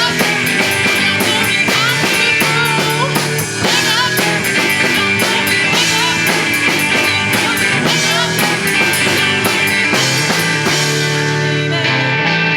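Live rock band playing an instrumental passage: drum kit with cymbals, electric guitar and bass guitar, loud and steady.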